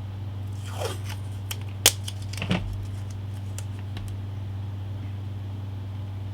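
Steady low hum with a few brief handling noises near the start: a short rustle, then a handful of sharp clicks, the loudest about two seconds in.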